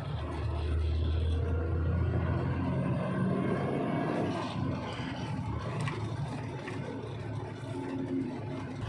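Heavy truck engine running under way: a low rumble that is strongest for the first few seconds, then settles to a steadier drone.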